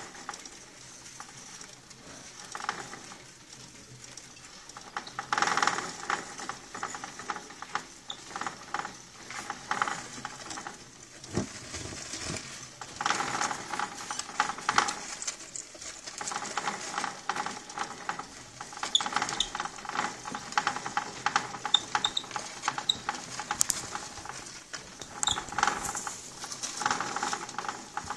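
Orange plastic hamster wheel spinning and rattling as Djungarian dwarf hamsters run and scramble in it, with irregular clicks and scrabbling in wood shavings. A steady whirring hum comes and goes in spells while the wheel turns.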